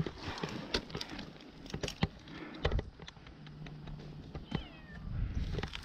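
A black kitten stuck in a tree meowing, with one clear falling cry about three-quarters of the way through. Scattered sharp clicks and knocks are louder than the cries.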